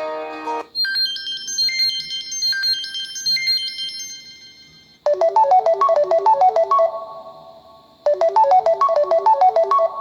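Samsung Galaxy S4 stock ringtones played one after another. A high chiming melody of rising runs fades out, then about halfway through a new ringtone starts: a quick pattern of short notes that plays, pauses briefly and plays again.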